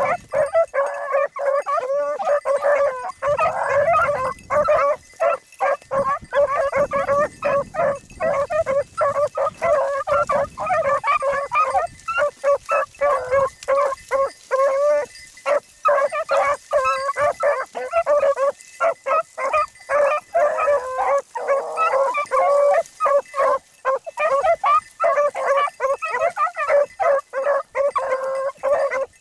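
A pack of beagles baying together, many overlapping hound voices calling almost without pause, as the dogs work to the rabbit after the shot.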